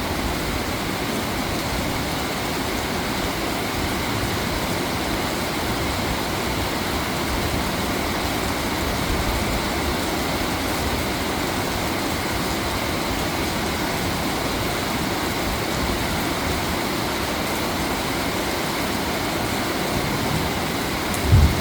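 Steady rushing noise with a low rumble, like a moving vehicle or traffic, with a short low thump near the end.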